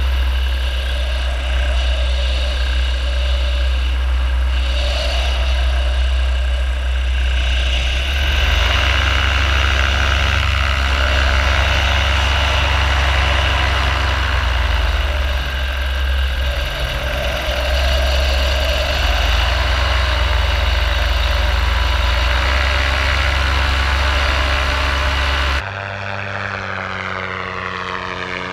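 Paramotor's two-stroke engine and propeller running steadily, a loud drone close up. Near the end it cuts suddenly to a quieter, more distant engine note whose pitch slides down as the paramotor flies past.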